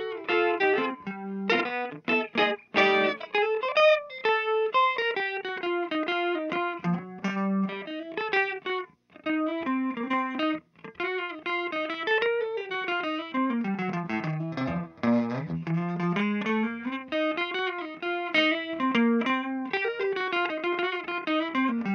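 Background music, a guitar-led instrumental with a continuously moving melody.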